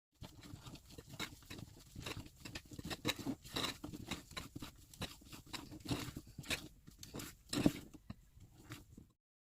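Spatula folding whipped egg whites into lemon sponge-cake batter in a mixing bowl: an irregular run of soft scrapes and slaps against the bowl, loudest a little before the end.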